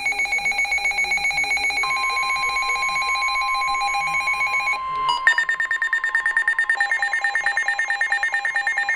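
Emergency Alert System alert tones announcing a severe thunderstorm warning, heard from a broadcast. Steady electronic tones sound first, with a second tone joining about two seconds in. About five seconds in they switch to a higher, rapidly pulsing warble.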